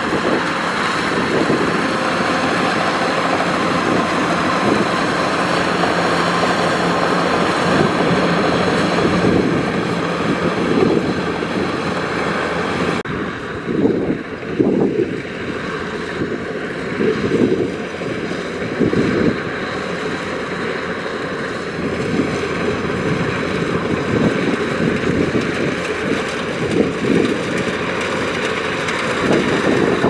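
Kubota DC-105X rice combine harvester's diesel engine and threshing machinery running steadily as it works through the field. About halfway through, the sound changes abruptly, and gusts of wind buffet the microphone.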